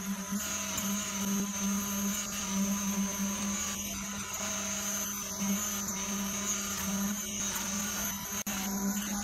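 A motor running steadily with a strong, even hum that swells and fades slightly, construction machinery at work on the concrete job.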